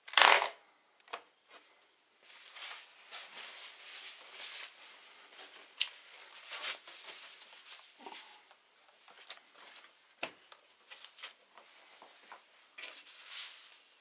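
A laptop lid shut with a sharp clack at the start, then a thin plastic packing sheet crinkling and rustling as it is spread out and smoothed by hand, with a few light knocks as the laptop is handled and laid down on it.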